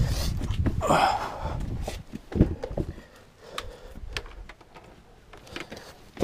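Handling noise as a wiring cable is worked by hand around a vehicle's door opening: rustling and light knocks, with one sharper knock about two and a half seconds in. It goes quieter after about three seconds, leaving scattered small clicks.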